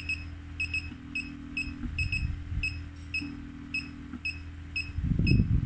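Vacuum suction massage machine giving a run of short high beeps as its control knob is turned, over the steady low hum of its vacuum pump, with a tone that switches on and off in spells of about a second as the machine cycles suction and release. Near the end comes a brief burst of low rumbling noise.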